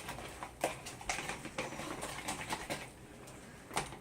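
Slime being stirred quickly in a mixing bowl: a run of irregular clicks and taps, two or three a second, with a louder one near the end.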